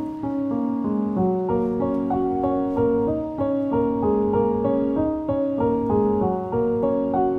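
Background piano music: a gentle melody of held notes changing about every half second.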